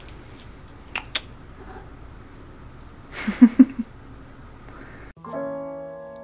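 A domestic cat gives a short questioning murmur, like 'unn?', a little over three seconds in. Soft piano music comes in about five seconds in.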